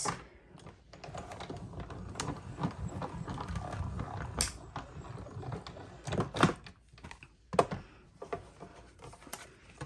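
Die-cutting machine feeding a taped paper-and-die sandwich through its rollers: a steady low rumble for several seconds. It is followed by a few sharp clacks of the cutting plates being handled.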